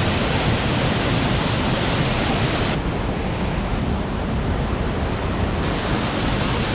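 Steady rushing of a waterfall and its fast river, heard close as a dense, even wash of water noise. The high end dulls for about three seconds in the middle and then comes back.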